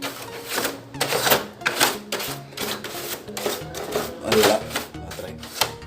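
A stiff shoe-polish brush scrubbing an air conditioner's filter mesh in quick, uneven strokes, with music playing underneath.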